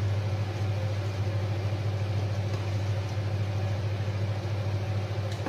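Tomato sauce with potato chunks bubbling and sizzling in a skillet, over a steady low hum.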